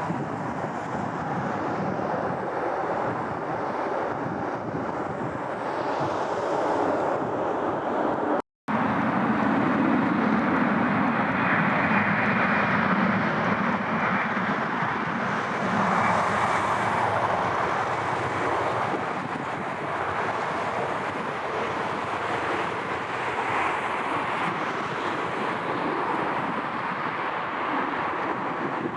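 Jet airliner engines, a steady rumble and hiss of a passing plane, with wind on the microphone. The sound cuts out for an instant about eight seconds in, then comes back louder and peaks a few seconds later.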